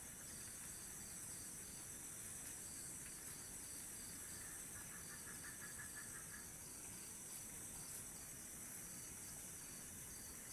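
Night insects, crickets chirping: a faint steady high trill, with one chirp repeating a little over twice a second and a short lower trill about midway through.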